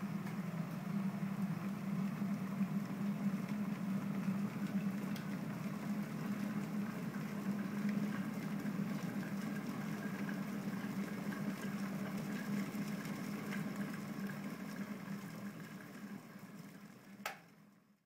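Scarlett glass electric kettle heating water to the boil: a steady rushing, bubbling rumble that dies away over the last few seconds, with a single sharp click near the end.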